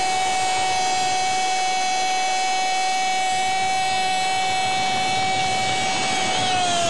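A football commentator's drawn-out "gooool" shout, held on one steady high note for several seconds, then wavering and falling away in pitch at the end.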